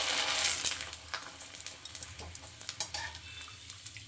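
Sabudana papad frying in hot oil in a metal kadhai: a strong sizzle at first that dies down about a second in, then scattered crackles and light clinks of metal tongs against the pan.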